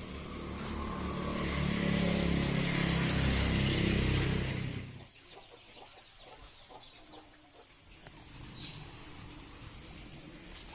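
Chicken squawking and clucking, loud for the first five seconds and then stopping abruptly, followed by fainter quick clucks.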